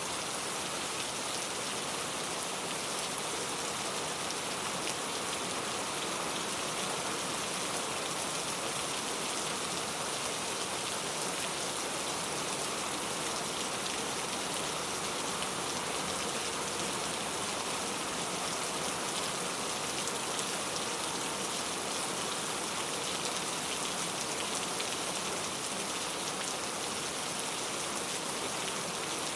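Steady rain falling: an even hiss of many fine drops, with no thunder.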